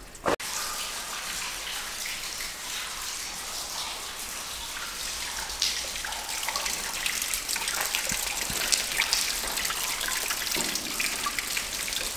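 Meltwater dripping and trickling inside a rock railway tunnel: a steady splashy hiss with many small scattered drips.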